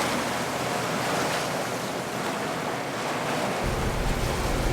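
Wind and sea noise aboard a sailboat underway in a swell: a steady rushing hiss of wind and water, with wind buffeting the microphone. A low rumble joins about three and a half seconds in.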